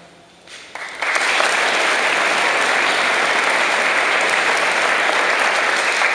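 Audience applauding: a few scattered claps about half a second in, then full steady applause from about a second in.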